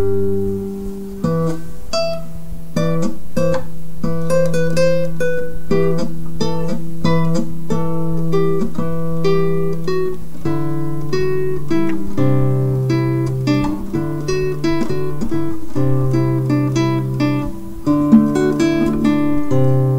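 Background music: an acoustic guitar picking a melody of short plucked notes over held bass notes that change every second or two.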